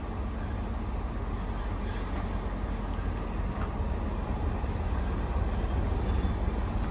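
A train moving slowly on the rails: a low, steady rumble that grows gradually louder, with faint wheel squeal starting near the end.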